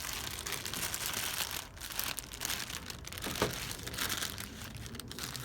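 Plastic packaging crinkling and rustling as it is handled, with a few light clicks.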